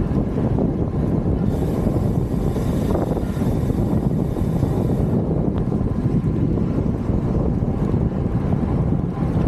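Wind buffeting an action camera's microphone while riding at about 45–50 km/h: a steady, dense low rumble with road noise under it. A higher hiss joins from about one and a half to five seconds in.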